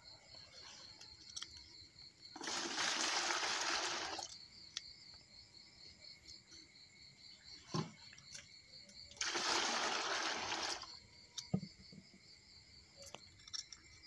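Water running in two spells of about two seconds each, over steady cricket chirping, with small clicks and knocks from hands working on fish.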